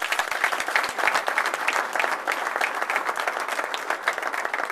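Audience applauding at the end of a speech, many hands clapping steadily.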